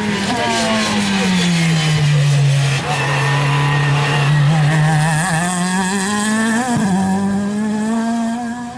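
A race car's engine running hard as the car passes close by. Its note drops over the first few seconds and then climbs again.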